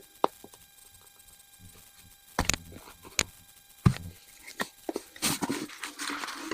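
Rifle parts being handled on a bench: scattered sharp clicks and knocks, about half a dozen, with a stretch of rustling near the end.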